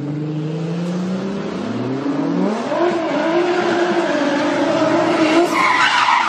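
Car engine revving hard, its pitch climbing steeply over the first couple of seconds and then held high at full throttle. Near the end a high tyre squeal joins in as the car slides sideways.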